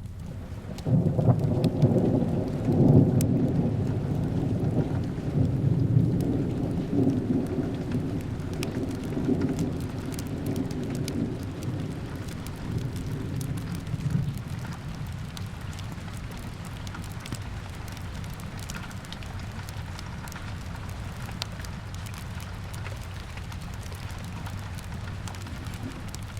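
Steady rain with a long roll of thunder that starts about a second in and slowly dies away over the next dozen seconds. Soft fireplace crackle ticks through the rain.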